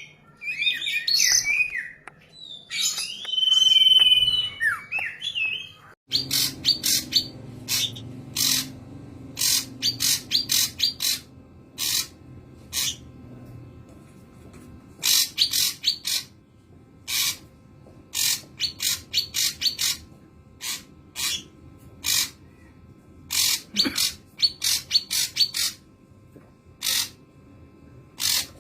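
A young ashy drongo singing, mimicking the common iora. The first few seconds are a varied run of gliding whistled phrases with one held whistle. After about six seconds come sharp, short chipping notes in quick clusters.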